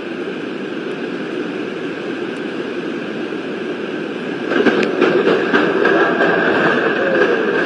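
A flood-swollen river rushing past in heavy rain: a loud, steady rushing noise that grows louder about four and a half seconds in.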